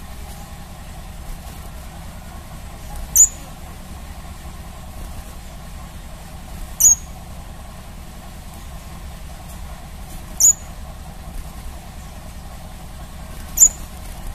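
Crimson sunbird giving four short, sharp, very high-pitched chirps, spaced about three and a half seconds apart, over a steady low hum.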